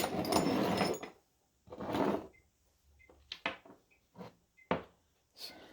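A paintbrush swishing as polyurethane is brushed onto a screwdriver handle: two longer swishes, then several short clicks and knocks of the handle and tools being handled on the workbench.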